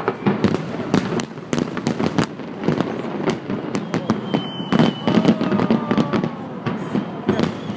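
Fireworks salute: shells bursting overhead in a dense, irregular string of bangs, several a second.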